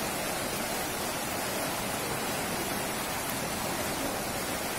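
Fast-flowing floodwater rushing down a street, a steady rushing noise, with rain mixed in.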